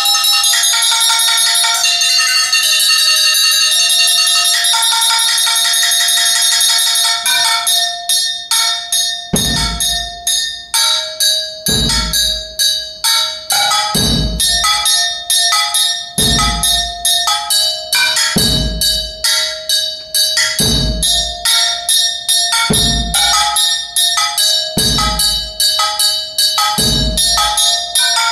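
Solo multiple percussion: rapid strikes on ringing metal instruments. For the first several seconds the ringing runs together into a dense wash, then it breaks into separate sharp strikes. From about nine seconds in, a low drum thud comes about every two seconds under them.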